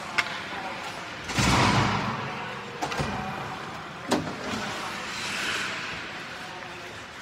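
Ice hockey rink sounds: about four sharp clacks of hockey sticks and pucks on the ice and boards, over a hiss that swells twice.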